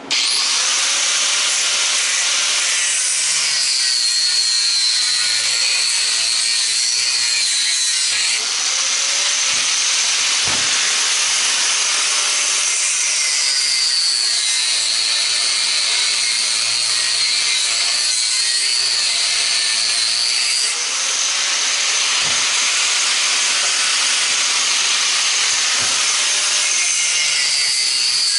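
Angle grinder running without a break, cutting metal on a scrap electric motor. Its high whine sags in pitch three times as the wheel bites in and rises again between cuts.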